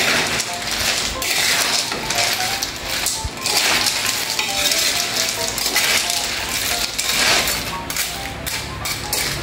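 Hard snail shells (susong pilipit) clattering against each other and the metal wok as they are stirred with a spatula: a dense, continuous clinking and rattling.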